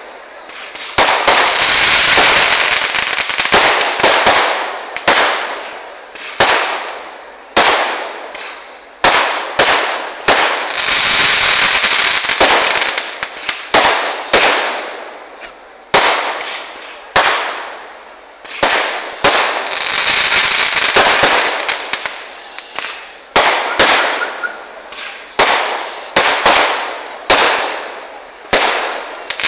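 Fireworks going off: sharp, loud bangs about once a second, each trailing off in a fading rumble, with a few longer stretches of dense crackling lasting about two seconds.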